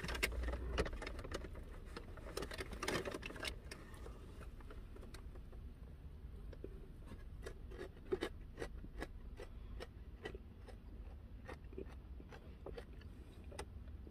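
Faint eating sounds at close range: a paper napkin rustling for the first few seconds, then scattered small clicks of chewing and handling a paper takeout box.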